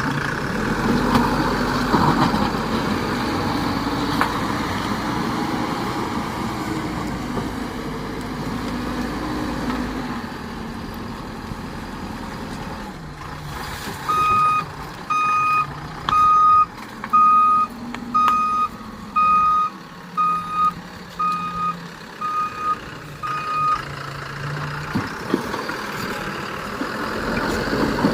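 Diesel engine of heavy earthmoving machinery running. About halfway through, a reversing alarm sounds about ten steady beeps, roughly one a second, as a machine backs up.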